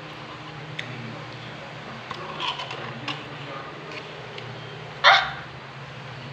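Spoon eating: a few light clicks over a steady low hum, then about five seconds in a single short, loud, bark-like yelp that rises in pitch.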